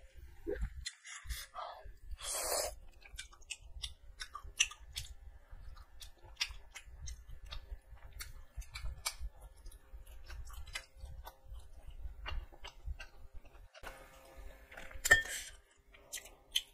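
Close-miked wet chewing and mouth smacking, with many small lip and tongue clicks, from someone eating rice and chicken curry by hand. A sharper clatter comes about a second and a half before the end.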